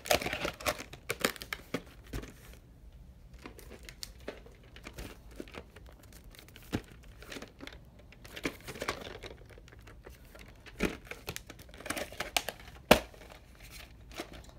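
Plastic VHS cassettes and clamshell cases being handled: rustling and scraping with scattered clicks, and one sharp plastic click near the end.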